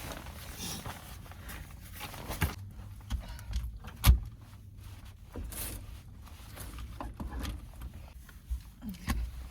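Irregular knocks, clicks and rustles of things being handled and moved, with one sharp thump about four seconds in, over a faint low steady hum.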